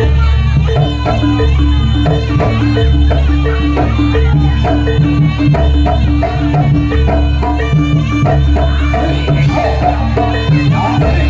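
Traditional East Javanese jaranan accompaniment music: hand drums beating a busy, steady rhythm over sustained low tones and a melody line.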